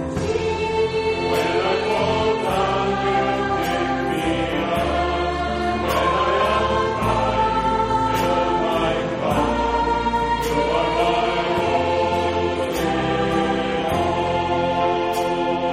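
A choir singing a hymn over an accompaniment of held bass notes that change every second or two.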